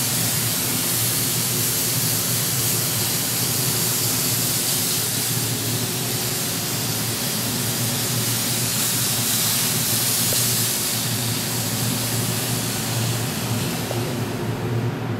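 Steady loud hissing rush of smoke being blown out, over the low steady hum of a ventilation fan. The hiss fades away near the end while the fan hum carries on.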